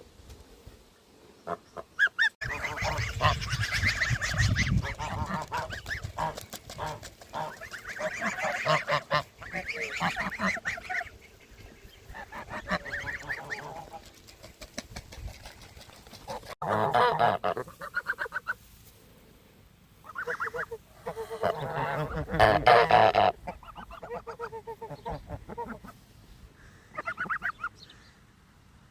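Geese honking in repeated bouts, with short pauses between the bouts.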